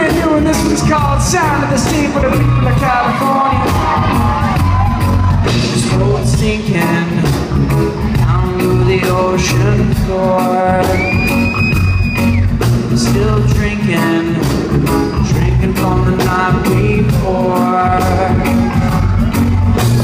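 Live reggae band playing in a concert hall: sung vocals over heavy bass and a steady drum beat.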